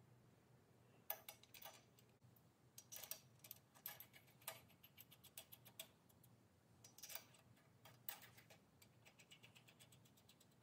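Faint, irregular small metal clicks and taps as the valve cap and rocker arms are handled and seated on the valve stems of a Predator 420 engine's open cylinder head.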